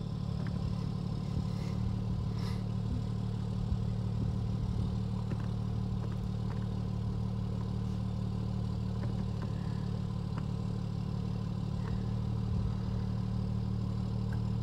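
Steady low hum of an engine idling, with a few faint ticks. The pitch stays constant and there is no cranking.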